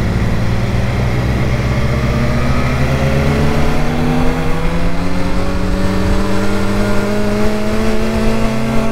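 BMW motorcycle engine pulling hard under acceleration, its pitch rising slowly and steadily as the bike gathers speed in one gear, over a steady rush of noise.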